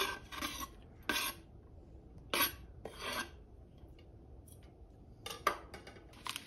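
Knife blade scraping minced garlic across a wooden cutting board into a pot: several short scrapes, a quieter pause in the middle, then a few more near the end.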